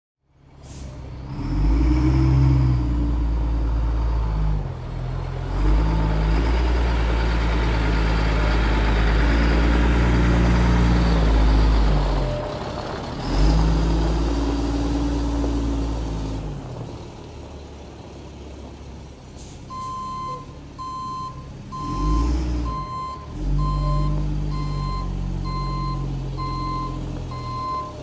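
Diesel engine of a Stewart & Stevenson M1089A1 FMTV military wrecker revving up and down as the truck manoeuvres, loudest in the first half. About twenty seconds in, its reversing alarm starts beeping steadily.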